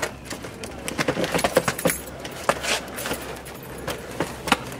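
Lumber frame carrying a strapped, wrapped cactus knocking and scraping as it is hauled over the ground, with irregular clattering knocks.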